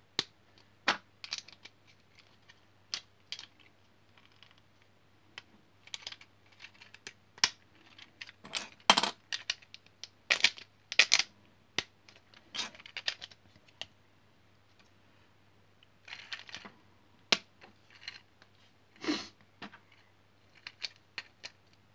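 Wilko Blox plastic building bricks being handled and pressed together: irregular sharp clicks and clatters of small plastic pieces, some in quick clusters.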